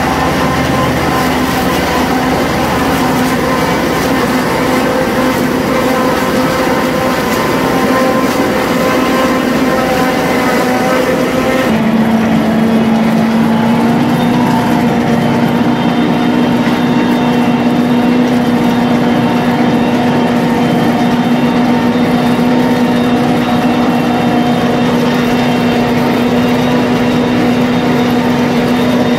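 Engine of farm machinery running steadily with a constant hum. About twelve seconds in the sound changes abruptly and settles on a lower, steadier hum.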